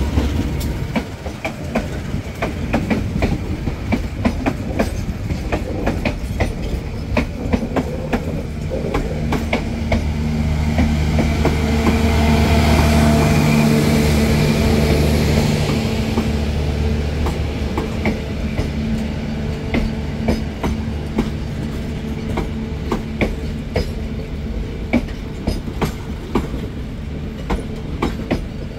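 Passenger coaches of a diesel-hauled long-distance train rolling past, wheels clicking over rail joints over a steady rumble. About a third of the way in, the hum of the diesel generator in the train's power car swells as it passes, then fades.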